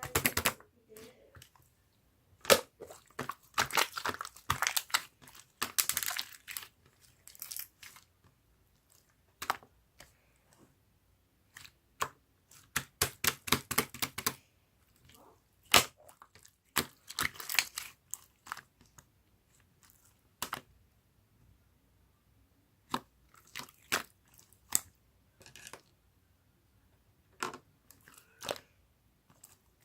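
Close, irregular crunching and crackling: quick clusters of sharp clicks with short pauses between them.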